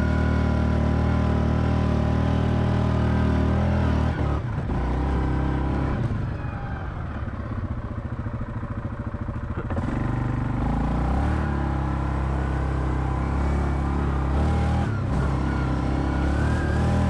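ATV engine running at a steady speed, dropping off and going uneven about four seconds in, then picking back up to a steady pull around ten seconds in.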